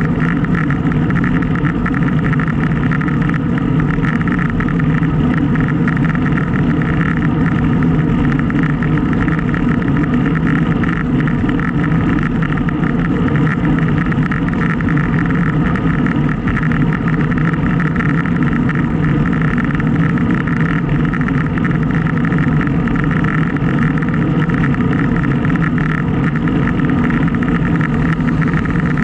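Steady, loud wind rushing over a Garmin VIRB action camera's microphone on a moving bicycle.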